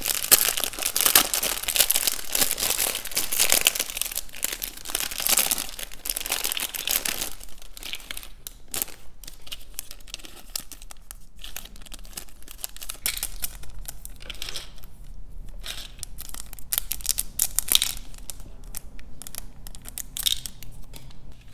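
Clear plastic rhinestone packets crinkling and rustling as they are handled, dense for the first several seconds, then sparser crinkles and small ticks.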